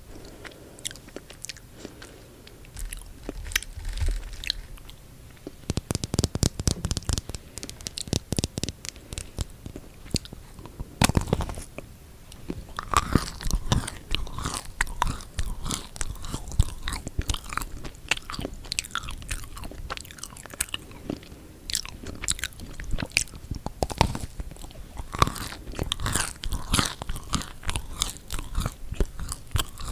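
Close-miked biting and chewing of chocolate-covered marshmallow cookies: crisp crunching in dense runs of clicks, sparse at first, with a loud bite about eleven seconds in and steady chewing after it.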